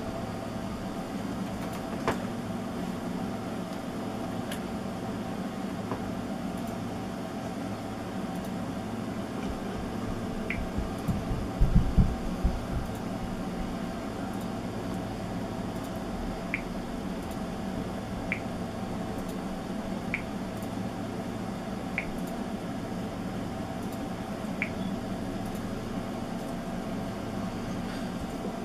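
Steady low hum of room tone. Faint single ticks come about every two seconds in the second half, and a brief cluster of low thumps falls near the middle, like the camera or phone being handled.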